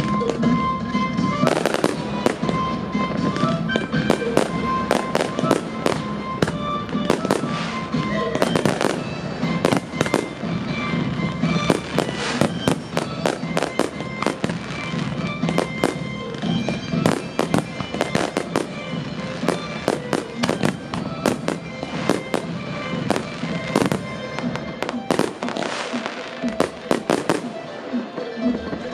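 Fireworks finale barrage: aerial shells and ground fireworks bursting in a rapid, near-continuous string of bangs and crackles, over music played along with the display.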